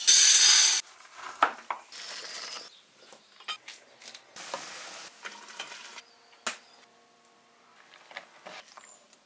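Kitchen cooking sounds in quick succession: a loud burst of sizzling at the very start, then scattered knocks and clinks of utensils and cookware, with two more stretches of quieter sizzling.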